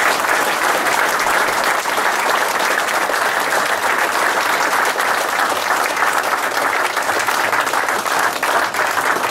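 Audience applauding: many people clapping in a steady, dense applause.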